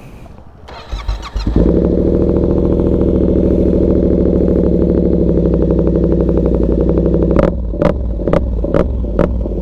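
A motorcycle engine starts about a second and a half in and settles into a steady idle. Near the end comes a quick series of about six sharp, gunshot-like cracks over the running engine.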